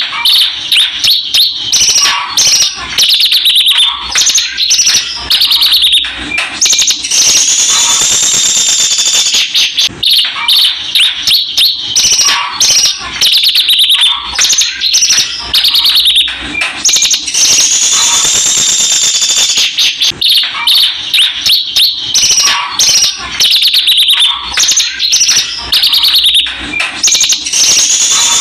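Javan bushlark singing loudly and without pause: rapid, varied high twittering notes broken by a long held high trill, the sequence repeating about every ten seconds.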